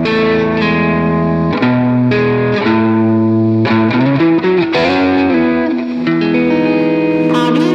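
Background music led by guitar, playing a run of sustained notes that change every second or so.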